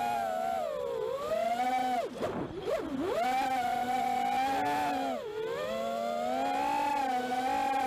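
FPV quadcopter's electric motors and propellers whining, the pitch rising and falling with the throttle. The whine drops and wavers quickly about two to three seconds in and dips again about five seconds in.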